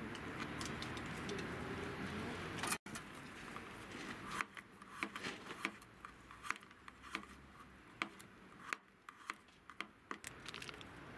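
Kitchen knife slicing garlic cloves on a plastic cutting board: a run of sharp taps, about two a second, starting some four seconds in after a few seconds of soft hiss.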